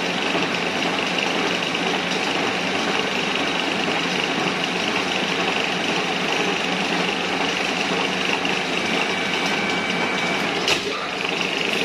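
Metal lathe running steadily, its chuck spinning a pipe while the tool cuts an external thread into the pipe end. A single sharp click near the end.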